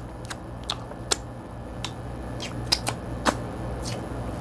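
Scattered sharp clicks and cracks of king crab shell being handled and cut with kitchen scissors, about ten irregular snaps.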